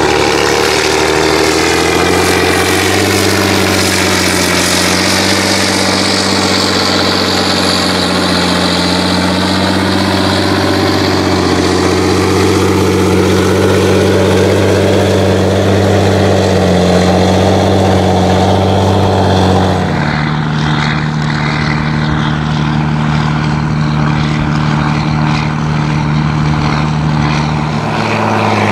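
John Deere 7920 tractor's six-cylinder turbodiesel with an open straight-pipe exhaust, running hard at steady speed under heavy load while pulling a laser land leveler through soil. A whine above the engine note falls and then rises again, and the engine note shifts abruptly about two-thirds of the way through.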